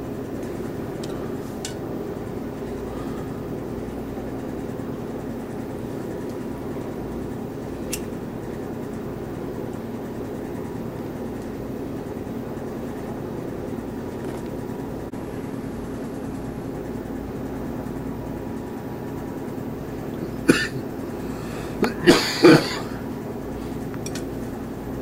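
Steady low background hum, broken near the end by a short sharp sound and, a moment later, a louder cluster of a few quick sharp sounds.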